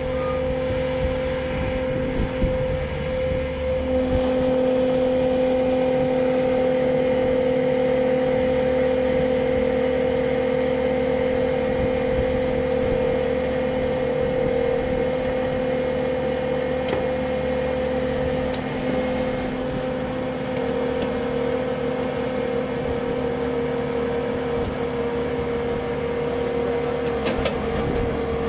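Heavy machine engine running steadily, a constant droning hum that holds the same pitch throughout.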